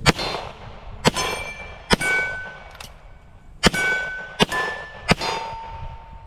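Six gunshots fired in a quick timed string with uneven spacing, several hitting steel plate targets that ring out with a clear, sustained tone after each hit.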